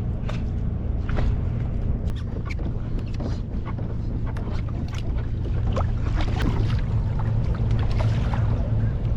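Small outboard motor running steadily at a constant speed, a low hum, with scattered light clicks over it.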